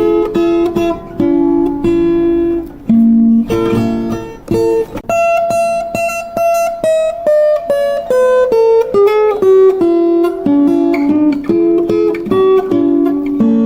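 Solo acoustic guitar-type instrument playing an instrumental passage: a picked melody, often two notes sounded together, with a slower high line that falls step by step in the middle.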